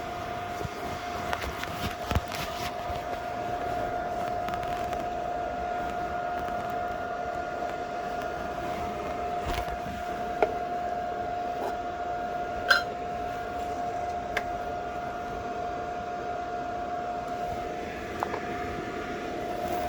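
A 100-volt welder building up weld on a steel car frame: a steady crackling hiss of the arc under a constant high whine, with a few sharp pops.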